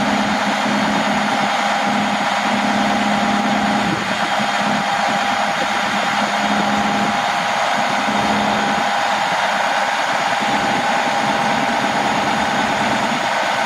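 Truck's diesel engine running and driving the hydraulics of a Fassi knuckleboom crane as the boom is folded in: a steady drone with a constant high whine and a lower hum that comes and goes every few seconds as the crane is worked.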